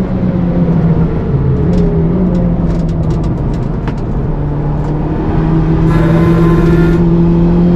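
Toyota Starlet Glanza V's turbocharged 1.3-litre four-cylinder running hard, its pitch dipping about a second in and then climbing again. A run of sharp clicks falls in the middle.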